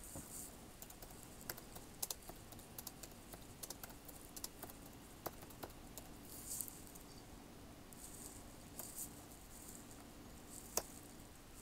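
Faint, irregular clicking of keys being typed on a computer keyboard, with a couple of soft rustles in between and one sharper click near the end.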